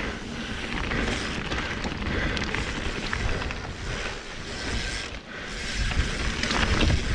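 Mountain bike rolling fast down a dirt and loose-gravel trail: tyre noise over the stones with many small rattles and knocks from the bike over bumps, under a steady rumble of wind on the microphone. The noise briefly eases about five seconds in.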